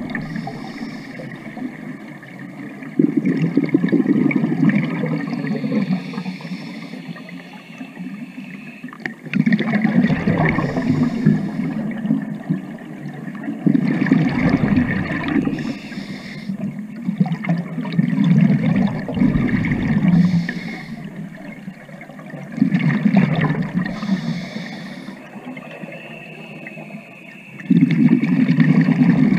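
Scuba diver breathing through a regulator, heard underwater: each exhalation is a burst of rushing, gurgling bubbles, about every four to five seconds, quieter in between.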